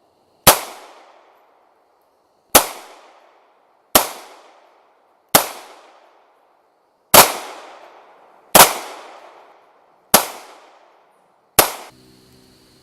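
Gunshots: a firearm fired eight times in a steady string, about one shot every one and a half to two seconds, each sharp crack followed by a fading echo.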